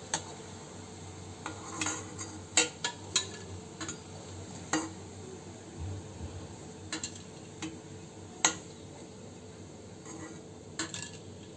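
Chicken aloo kababs sizzling in hot oil in a kadai, with a steady hiss of frying. A metal slotted spoon clinks and scrapes against the pan a dozen or so times at irregular intervals as the fried kababs are lifted out.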